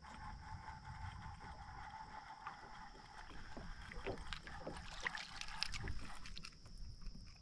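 A small fish being reeled in beside a kayak, splashing at the surface, with water sloshing and light clicks in a cluster about two-thirds of the way in. A faint steady high-pitched whine runs underneath.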